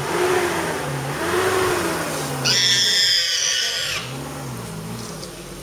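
Wild boar squealing in a tiger's grip: low rising-and-falling grunting calls at first, then one loud, harsh, high squeal lasting about a second and a half from about two and a half seconds in. A vehicle engine idles low underneath.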